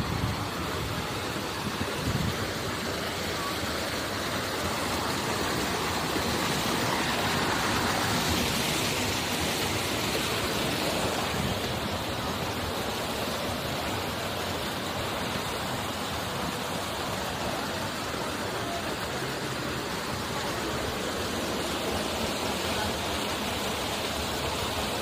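Steady rush of water from a waterfall splashing down into a pool, a little louder in the middle.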